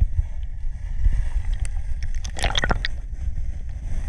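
Muffled low rumble of shallow seawater surging around a GoPro in its waterproof housing, sitting on the sandy bottom. A cluster of crackles and clicks comes about two and a half seconds in.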